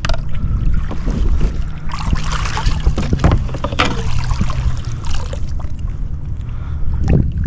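Wind buffeting the microphone on a kayak at sea, a heavy low rumble throughout, with water sloshing and splashing against the hull around the middle.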